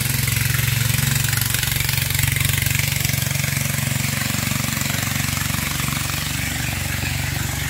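Engine of a motorized wooden river longboat running steadily as the boat travels along the river, a continuous low hum.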